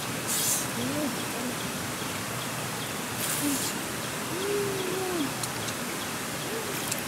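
Leaves and branches rustling twice in short bursts as a fruit is pulled from a tree, over a steady outdoor hiss, with a few faint low calls, the longest lasting about a second.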